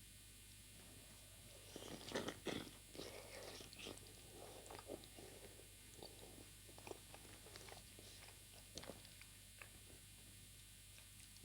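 A person biting into and chewing chicken momos. A cluster of the loudest bites comes about two seconds in, then softer, scattered chewing sounds follow.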